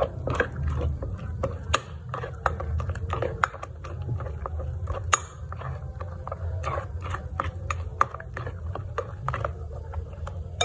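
A hand squeezing and mixing a wet, sticky tofu-and-tapioca dough in a glass bowl: soft irregular squelches with small clicks against the glass. The dough is too wet from too much ice water.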